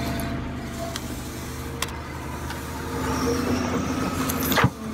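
An engine running steadily, with a sharp click near the end.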